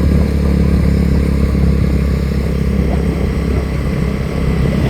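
Motor vehicle engine running steadily while on the move.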